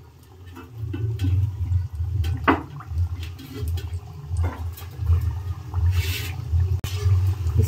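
Thekua (wheat-flour and jaggery cakes) deep-frying in hot refined oil in a steel kadhai, the oil bubbling and sizzling steadily. A louder burst of sizzling comes about six seconds in as another piece goes into the oil, with a few light knocks scattered through.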